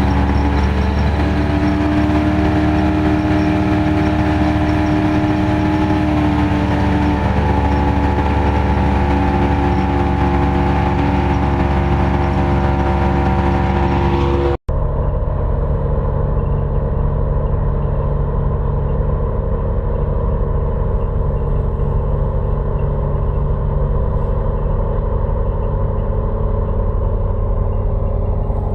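Wheat-harvesting machinery running steadily under engine power, in two separate recordings: the first has a steady whine with a small shift in pitch partway, then it cuts off abruptly about halfway and a duller, more muffled machine sound takes over.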